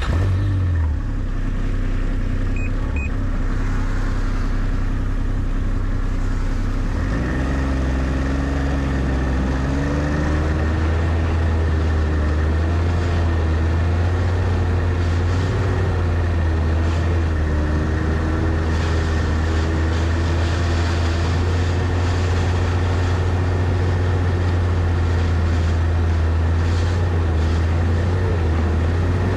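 Snowmobile engine running slowly at first, then throttled up about seven seconds in, rising in pitch and carrying on at riding speed, its pitch wavering up and down with the throttle.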